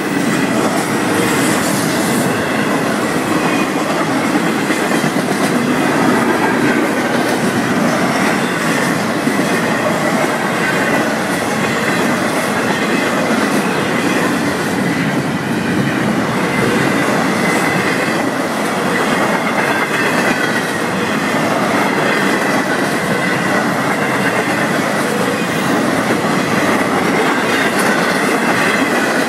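Florida East Coast Railway double-stack intermodal freight cars rolling past, a steady loud rumble and clatter of steel wheels on the rails.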